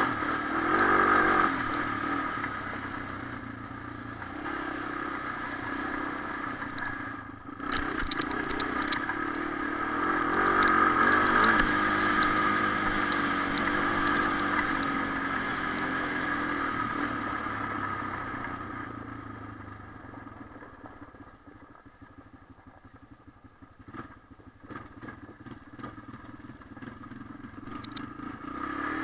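Honda TRX250 ATV's single-cylinder four-stroke engine running under throttle, rising and falling as the rider works it, with some rattling. It eases off to a much quieter, low run for several seconds in the second half, then picks up again near the end.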